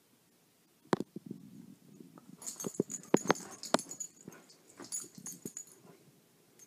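A corgi scrambling after a laser-pointer dot on carpet. A single knock comes about a second in, then a quick run of paw scuffs and knocks with a high rattle over the middle few seconds.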